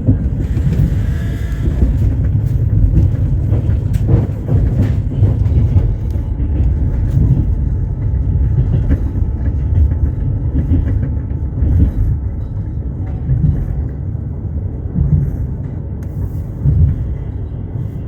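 Passenger train running, heard from inside the carriage: a steady low rumble of wheels on rails, with a few sharp knocks from the wheels over the track.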